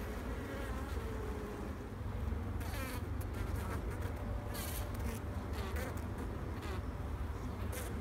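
A colony of honeybees buzzing over the open frames of a hive: a steady hum, with the wavering buzz of single bees flying close now and then.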